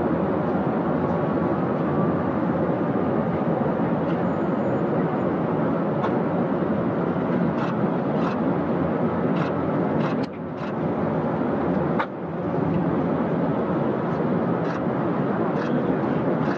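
Steady rumbling noise of airliner jet engines at the airport, with two short drops in level about ten and twelve seconds in.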